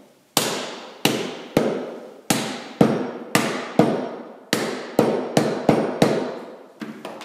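A rubber mallet knocks an end cap onto a three-phase electric motor's housing, seating it square: about a dozen sharp blows, roughly two a second, each ringing briefly in the metal housing.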